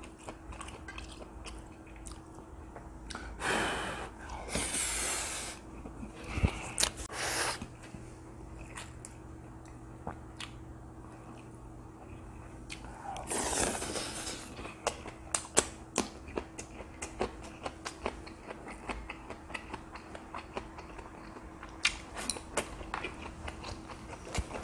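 Close-miked wet chewing and biting of spicy stir-fried pork and rice, with small clicks of chopsticks and mouth sounds. Two louder noisy rushes come a few seconds in and about halfway, over a faint steady hum.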